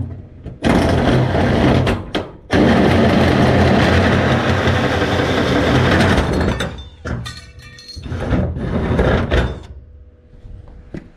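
Power drill running a hole saw through corrugated sheet-steel wall siding: loud metal-cutting noise starting about a second in, a short break, then a steady cut of about four seconds. Rattling clatter follows as the cut ends, then another short burst of drilling.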